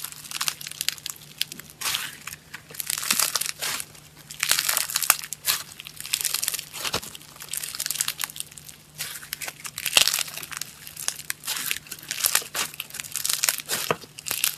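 Foam slime being squeezed and pressed by hand, giving repeated bursts of crunchy crackling and popping every second or two.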